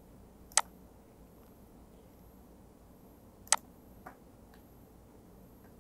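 Computer mouse clicking: two sharp single clicks about three seconds apart, the second followed shortly by a fainter click, over faint room hiss.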